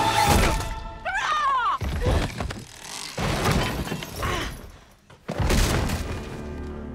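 Film fight soundtrack: dramatic score under a string of heavy thuds and crashes as a body falls onto a wooden floor, with a short rising-and-falling cry about a second in. The loudest crash comes near the end.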